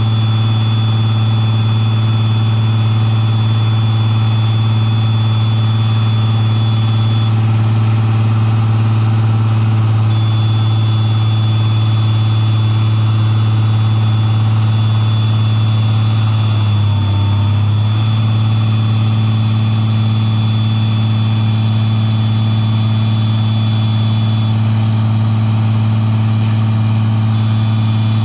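Diesel engine of an articulated underground mining machine running steadily, with a thin high whine over it that drops out twice. About two-thirds of the way through, the engine note dips and wavers briefly.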